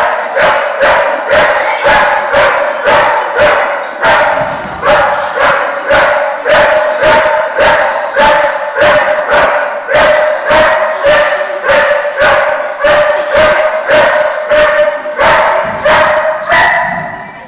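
A dog barking over and over at a steady pace, about two barks a second, until the barking stops shortly before the end.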